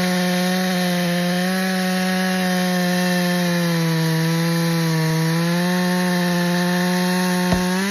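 Stihl chainsaw running at full throttle while cutting through wood, its pitch sagging a little under load midway through the cut. At the very end the throttle is released and the engine note drops away.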